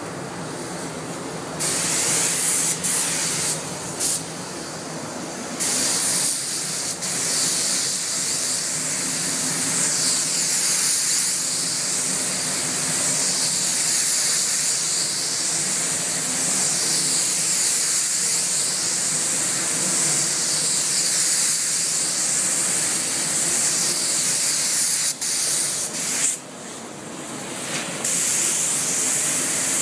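Paint spray gun hissing as red base coat is sprayed onto a car bonnet, starting about two seconds in, cut by a few short pauses of the trigger and a longer one near the end. A steady low hum runs underneath.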